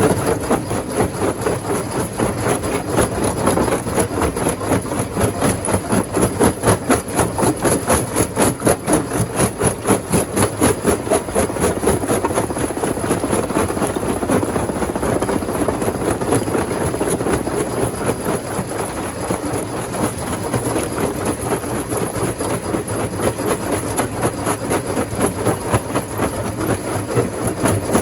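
Rock crusher machinery running continuously, a dense mechanical noise that pulses in a fast, even rhythm.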